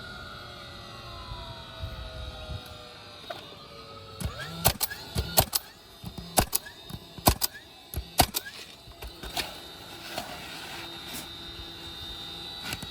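A steady machine hum with several tones slowly falling in pitch, then a run of about a dozen sharp knocks or clicks starting about four seconds in and lasting some five seconds.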